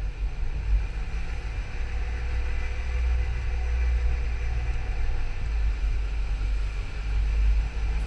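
Skoda Yeti's 1.2 TSI (CBZB) four-cylinder petrol engine running with a steady low rumble. The owner records it as an abnormal engine noise.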